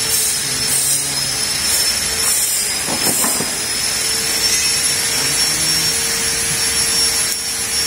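Steady workshop machine noise: a constant hiss with a high whine and a low hum, unchanging throughout.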